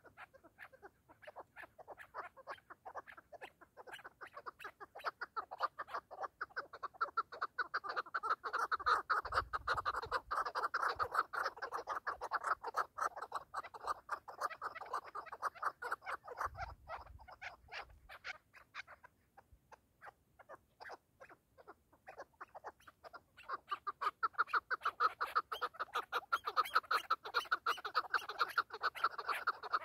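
Chukar partridges calling in a fast run of repeated clucking notes that builds up, eases off about two-thirds of the way through, then swells again near the end.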